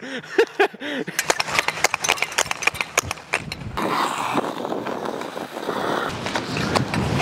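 A brief laugh, then speed skate blades on ice: a run of sharp, irregular clicks and scrapes, and from about four seconds in a steady scraping hiss as the skater strides and glides down the ice.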